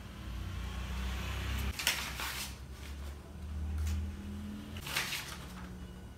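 Paper cutouts being handled and set down on a fabric mat: two short rustling scrapes, about two and five seconds in, over a low hum.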